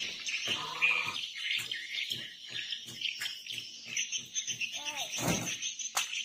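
Steady high-pitched chorus of insects, with scattered short knocks and a few brief squeaks over it, and a louder clatter about five seconds in.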